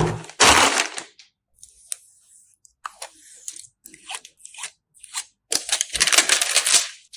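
Handling noise from PC assembly: crinkling and crunching, with scattered small clicks and knocks through the middle and a longer crinkling burst near the end.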